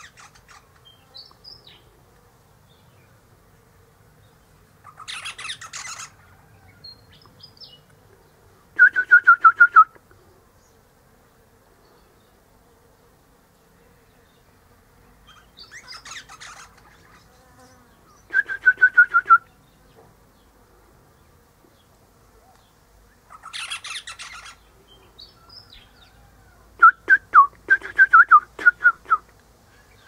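Eastern rosella parrot calling in bouts. Each bout is a harsher, noisier call followed by a loud, rapid string of short piping notes lasting about a second, and this comes three times. Faint high whistles sound in between.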